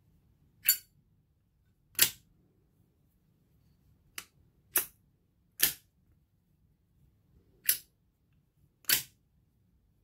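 Zippo lighter lid flipped open and snapped shut repeatedly: seven sharp metallic clicks spread unevenly, three of them close together in the middle, some bright and thin and some with a duller thud.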